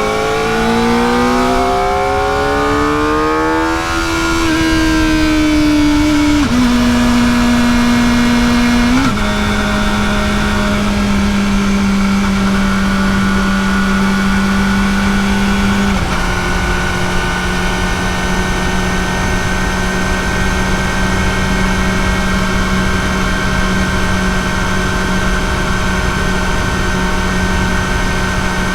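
Kawasaki ZX-4RR's 399 cc inline-four through its stock exhaust, heard from the bike while riding. The revs climb over the first four seconds, the pitch drops in two steps around six and nine seconds in, then the engine holds a nearly steady drone at a constant pace for the rest.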